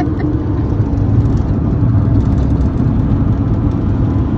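Steady engine and road noise heard inside a converted camper van's cab while it drives at highway speed.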